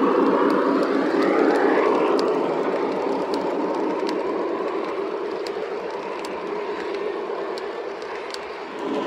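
Lionel 3-rail O gauge Santa Fe passenger train rolling past on the track: a steady rumble of wheels with light clicks about once a second, slowly fading as the passenger cars go by.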